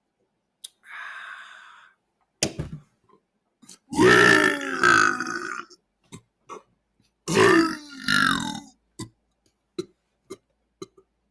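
A man belching loudly twice, two long drawn-out burps, the first about four seconds in and the second about seven seconds in. A short hiss and a few clicks come before them, and small clicks follow.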